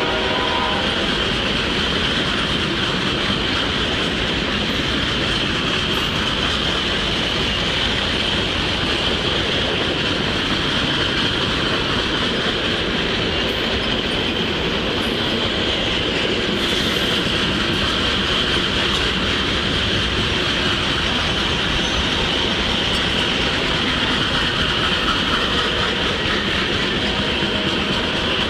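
Freight train of loaded gondola cars rolling past: steady wheel-on-rail rumble with a high, steady squeal from the wheels. The last of the locomotive horn fades out in the first second.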